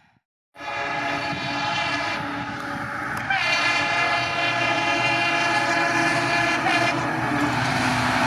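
WDP-4B diesel locomotive sounding its multi-tone horn in a long blast as it approaches, over the rising rumble of the engine and train. The horn starts right after a brief silence and grows stronger about three seconds in.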